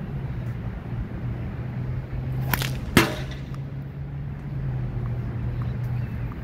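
A sling whooshes through a throw, followed about half a second later by a single sharp smack with a short ringing tail, the loudest sound, over a steady low hum.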